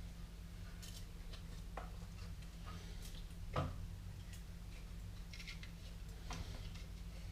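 Faint scattered clicks and taps of objects being handled, with one louder knock about three and a half seconds in, over a steady low hum.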